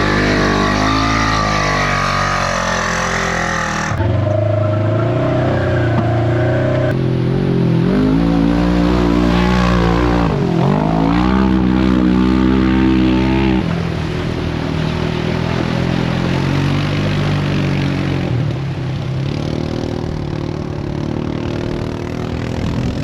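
Off-road vehicle engine running and revving, its pitch rising and falling. It dips low and climbs again about ten seconds in, and the sound changes abruptly a few times as the footage cuts.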